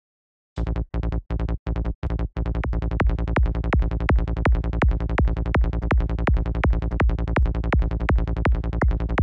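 Psytrance kick drum and bass from the KickNBassGel software synth, playing at about 165 BPM. The kick starts alone about half a second in. From about two and a half seconds in, a bass fills the gaps between the kicks.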